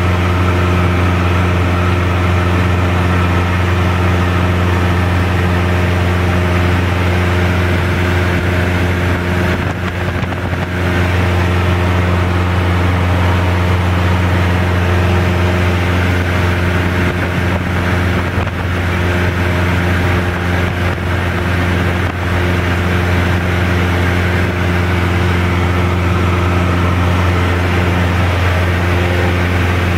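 Cessna 172's piston engine and propeller in flight, a loud steady drone heard inside the cabin.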